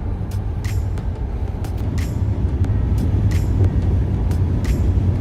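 Car road noise heard from inside the cabin while driving at speed: a steady low rumble, with faint sharp ticks about every second and a third.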